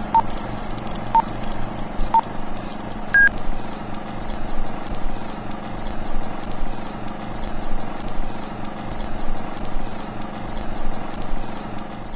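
Film-projector sound effect for a countdown leader: a steady mechanical whirr and clatter with a low hum and faint crackle. Three short beeps come a second apart, then a fourth, higher beep. The projector noise cuts off at the end.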